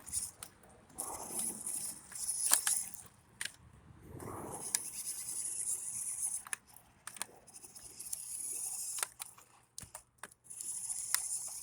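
RC car driven in short bursts: a hissing noise comes and goes in several stretches of a second or more, with scattered sharp clicks and knocks.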